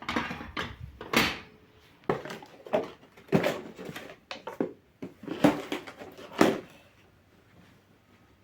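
A series of about ten household handling noises, knocks and rustles, one after another over about seven seconds, then they stop.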